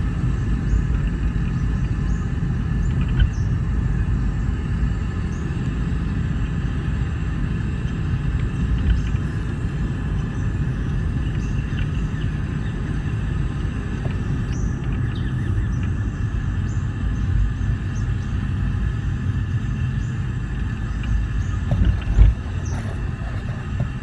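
Car cabin noise while driving: a steady low rumble of road and engine, with a brief knock near the end.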